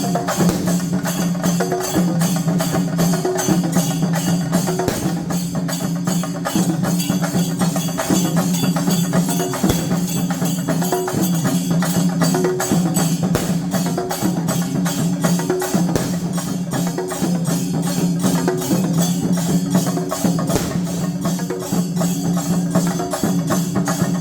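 Temple festival percussion music: fast, even drumming with jangling percussion over a sustained low tone.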